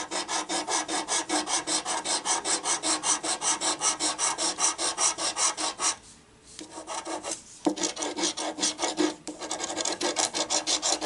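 A large coin scraping the scratch-off coating off a paper lottery ticket in fast back-and-forth strokes, about six a second. It pauses briefly twice a little past the middle.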